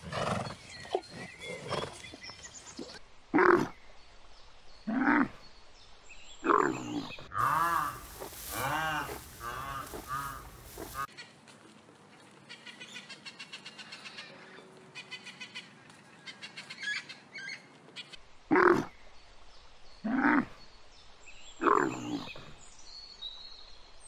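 Zebras calling in short calls that build into a run of rising-and-falling brays. Then a rainbow lorikeet chattering in fast, faint ticking notes. Then a dromedary camel giving single loud calls about a second and a half apart.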